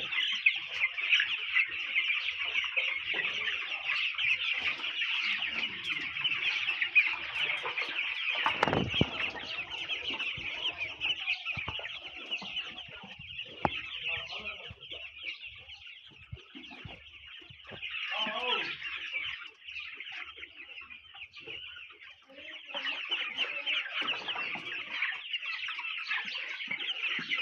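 A flock of broiler chickens chirping and clucking in a dense, continuous chorus. It thins out for a while in the middle, and a brief, louder low sound stands out about nine seconds in.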